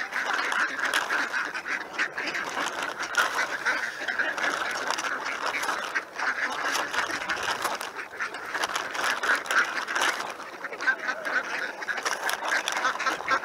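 A flock of ducks quacking, many calls overlapping in a steady chatter, as the birds crowd in to be fed.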